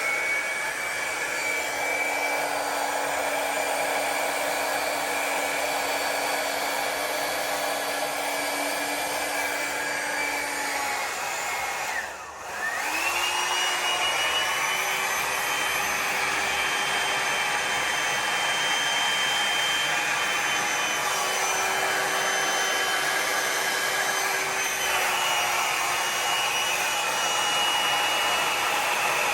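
Hair dryer blowing wet acrylic pour paint across a canvas to shape a wave, running with a steady whine. About twelve seconds in it switches off briefly, spinning down, then starts again at a higher pitch.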